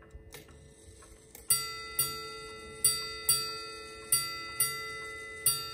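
Chelsea ship's strike clock striking seven bells, three pairs of rings and then a single ring, each ring dying away: the ship's-bell count for three and a half hours into the watch. A few faint clicks from the hands being turned come before the first ring.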